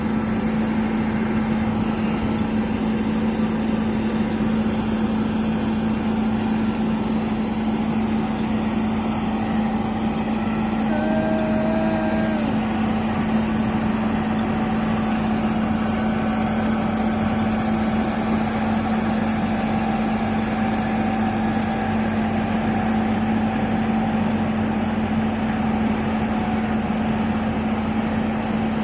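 Bulldozer's diesel engine running steadily with a constant hum, with a brief higher tone about eleven seconds in.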